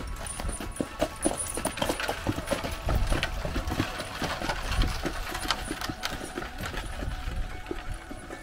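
Hooves of a pair of heavy draught horses clip-clopping on a hard road as they pull a spoke-wheeled wagon past, in an uneven run of sharp strikes. A low rumble from the wagon's wheels rises as it goes by, about three to five seconds in.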